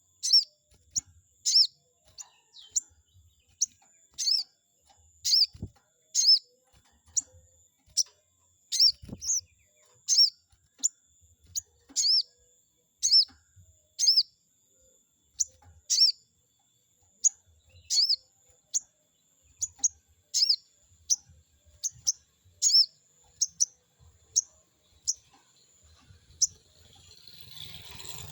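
Sogon bird calling: a long series of short, sharp, high chirps, about one or two a second, played as a lure call to provoke rival sogon birds into answering. A thin steady high tone runs under the chirps, and a faint hiss swells near the end.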